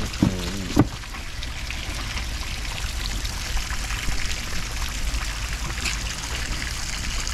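Water pouring and splashing steadily over a low rumble. A brief voice and a sharp knock come within the first second.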